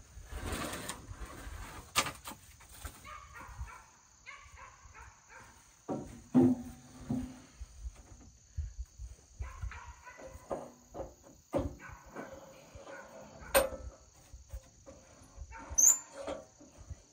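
Wooden boards being shifted and set on a Wood-Mizer sawmill's steel bed: scattered knocks and clunks of wood against metal, the sharpest about six and a half seconds in, over a steady high-pitched hum.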